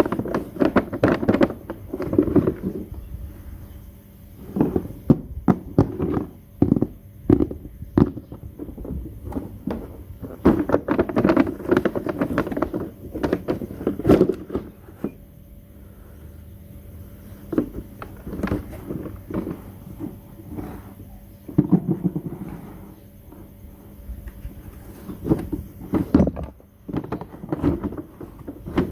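Miniature plastic toy kitchen pieces and their packaging being handled: irregular clicks and taps, with bouts of rustling.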